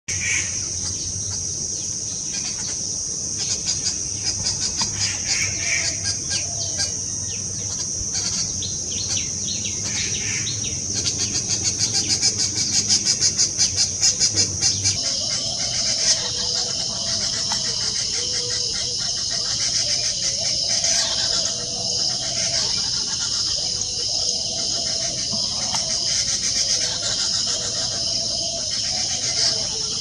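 Birds chirping and calling over a steady high-pitched insect drone, with a quick run of rapid pulsed calls about halfway through.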